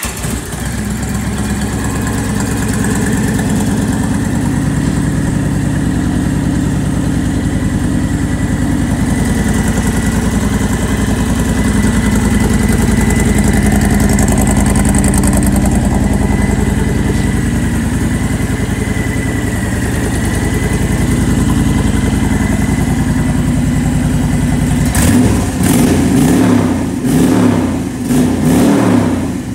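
A 2011 Honda VT1300CX Fury's V-twin engine idling steadily, then revved in several quick throttle blips near the end.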